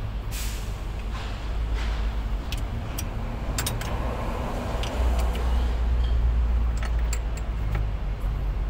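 Socket wrench turning bracket bolts on a truck diesel engine: scattered sharp metal clicks and taps, a few around three to four seconds in and more near the end, over a steady low rumble that gets louder about halfway through.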